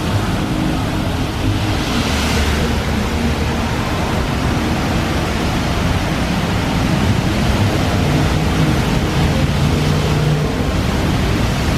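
Water jets of the Bellagio fountain spraying and falling back into the lake: a steady rushing, splashing noise, with a brighter surge about two seconds in.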